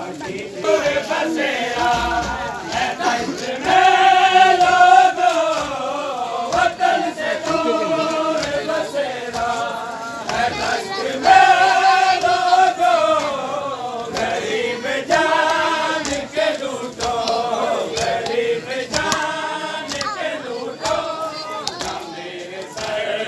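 Crowd of men chanting a noha in unison, in long repeated phrases that fall in pitch, with short sharp slaps throughout.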